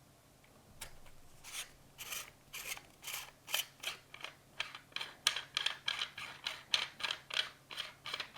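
Small Allen tool backing a screw out of an airsoft rifle's amplifier: a run of short metallic clicks and scrapes, about two a second at first, then quicker and louder from about halfway through.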